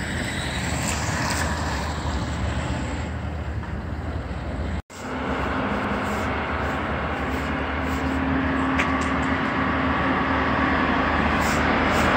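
Street traffic noise, then after an abrupt cut the steady engine and road noise of a vehicle moving down the street, with a held low hum that slowly grows louder.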